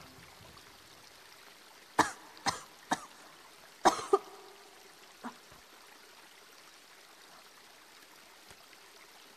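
A young woman coughing in two short fits: three coughs about two seconds in, two more about four seconds in, then a fainter single cough.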